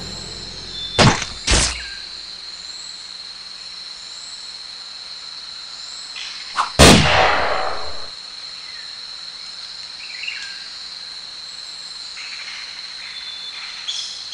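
Jungle ambience of insects droning on a steady high tone, with faint bird chirps. It is broken by two sharp bangs about a second in and a louder bang near the middle whose echo dies away over about a second.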